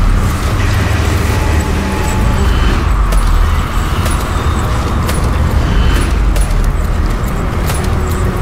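Experimental electroacoustic sound-art composition: a loud, dense, steady low rumble with a hiss over it, broken by scattered sharp clicks and a few brief thin tones.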